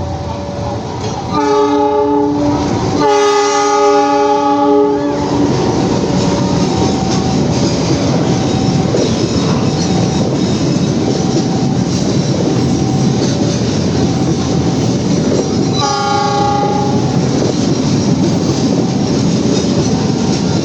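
CC 206 (GE C20EMP) diesel locomotive sounding its American-style multi-note chime horn: a short blast, then a longer one right after, and another short blast near the end. Between the blasts the train's running noise and wheel clatter on the rails go on steadily.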